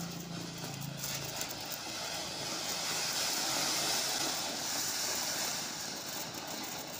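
Ground fountain fireworks (flower pots) spraying sparks with a steady hissing rush that swells toward the middle and eases off near the end.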